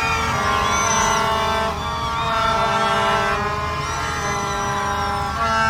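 A din of many horns blowing at once in a celebrating street crowd: overlapping steady notes of different pitches that change every second or so, from plastic toy trumpets, with a few high gliding tones mixed in.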